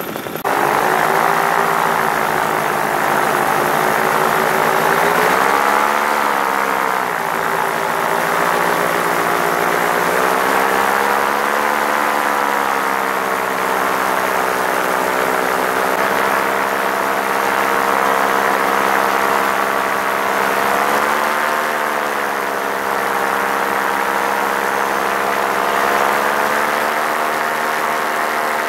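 Paramotor engine and propeller running steadily close by, heard from the pilot's seat during low flight. The pitch briefly rises and falls twice, about six seconds in and again about twenty-one seconds in.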